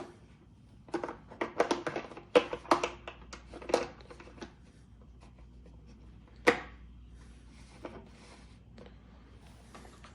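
Handheld tools from a PEX crimping kit being handled, giving a quick run of clicks and knocks, then one sharp click a few seconds later.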